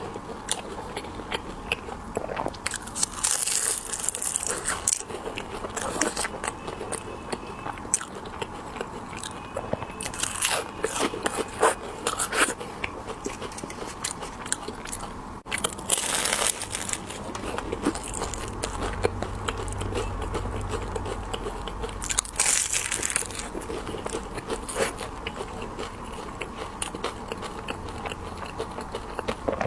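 Close-miked biting and chewing of candied haws (tanghulu), the hard sugar glaze cracking and crunching between the teeth in repeated bursts, with wet chewing between bites.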